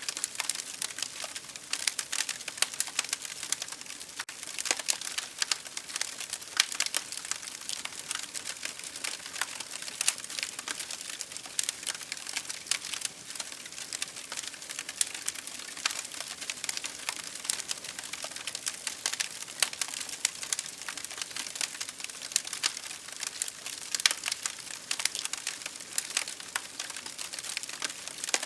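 Burning firewood in a campfire crackling: a steady stream of quick, irregular snaps with occasional louder pops.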